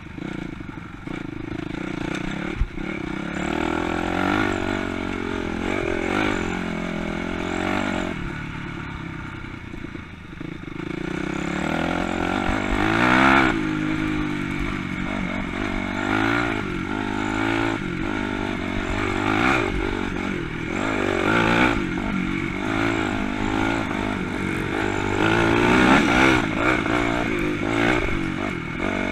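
Honda CRF250 dirt bike's single-cylinder four-stroke engine being ridden off-road, its pitch rising and falling again and again as the throttle is worked. Occasional knocks and rattles come through, with one sharp knock a few seconds in.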